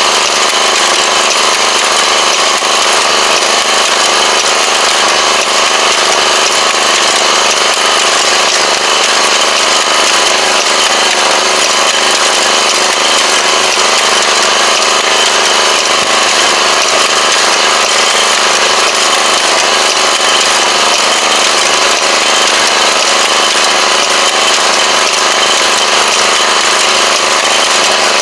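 Engine of a tobacco transplanting machine running steadily at an even speed while the planter works along the rows, heard close up from on the machine.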